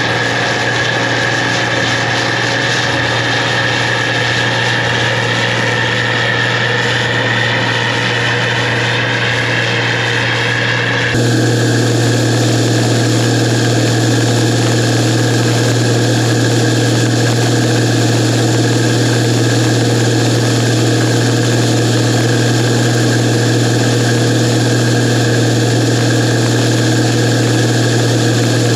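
Gleaner R52 combine running steadily at harvest, a low hum with a high whine over it. About eleven seconds in the sound changes abruptly to a slightly louder, even drone.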